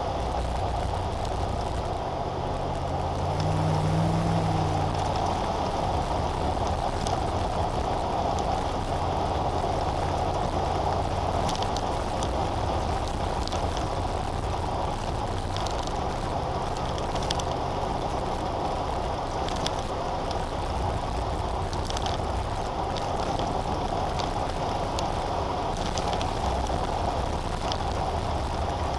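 Steady engine hum and tyre road noise of a car driving at speed, heard from inside the cabin. About three to five seconds in, a low engine note swells and fades, and faint light ticks or rattles come and go.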